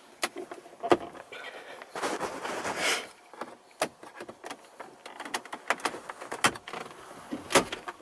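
Plastic centre-dash trim of a 2010 Hyundai Santa Fe being pushed and pried into place: a series of sharp clicks and knocks, with a longer scraping rustle about two seconds in.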